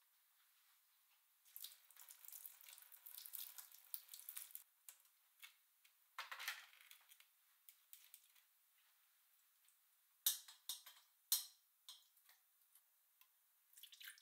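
Quiet kitchen-sink sounds: brief trickles and splashes of water, then a few sharp clinks of metal cookware near the end.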